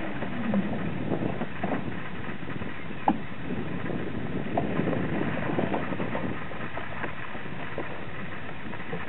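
Steady rumbling noise of a small vehicle moving slowly, mixed with wind on the microphone, with a few sharp clicks, the loudest about three seconds in.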